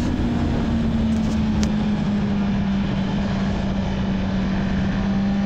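Motorcycle engine running steadily while cruising, under a steady rush of wind and road noise; its note eases down slightly in the first couple of seconds and then holds even.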